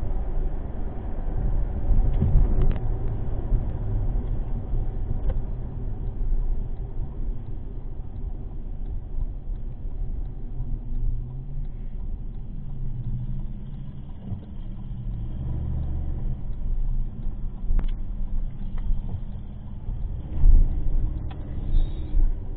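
Steady low rumble of a car driving, engine and road noise heard inside the cabin through a dash cam microphone, with a few faint clicks.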